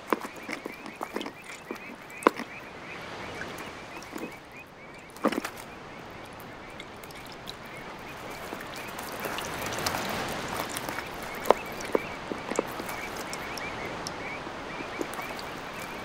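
Steady background chorus of calling animals, a high pulsing trill, over a soft hiss. Sharp clicks and taps come now and then, the loudest about two, five and eleven seconds in.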